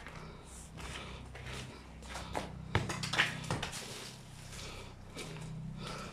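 A small football being kicked and knocked about on concrete, with footsteps and scuffing shoes. A run of sharp knocks comes a little past the middle, over a steady low hum.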